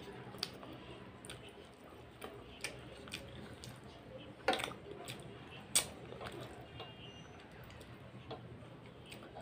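Eating by hand: scattered soft clicks and taps as fingers mix rice on a metal plate, with two sharper clicks about halfway through.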